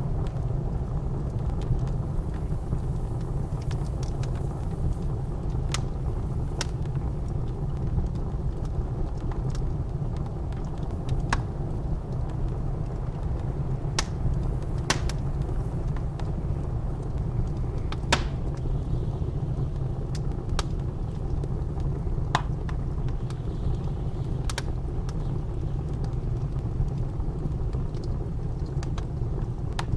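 Wood fire crackling, with scattered sharp pops every second or two over a steady low rumble of blizzard wind.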